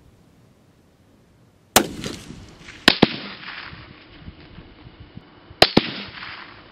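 Three bolt-action rifle shots, each a sharp crack followed by a long fading echo: the first under two seconds in, the next about a second later, the last near the end. The second and third each have a second crack close behind.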